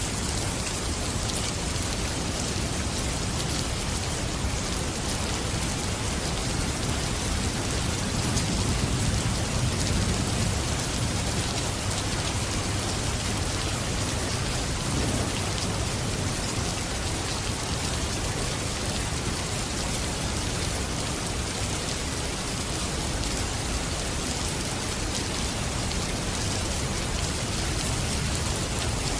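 Steady rain falling, a dense even hiss, with a slight low swell about a third of the way in.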